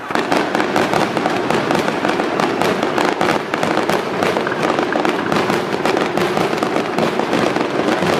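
Aerial fireworks bursting overhead: a dense, continuous run of rapid pops and crackles from many shells.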